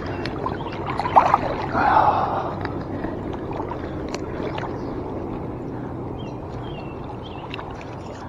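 Shallow river water rushing and gurgling around a wading angler's legs, a steady watery noise with two brief louder bursts about one and two seconds in.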